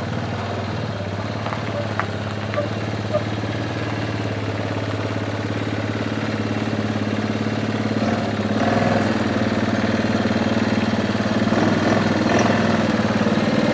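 ATV engine running steadily at low speed while the four-wheeler pushes a loaded trailer on a front push bar; it gets a little louder from about eight seconds in.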